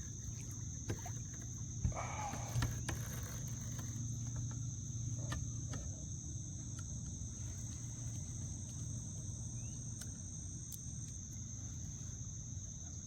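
Steady high-pitched drone of insects, with a low background rumble and a few short clicks and knocks about two seconds in.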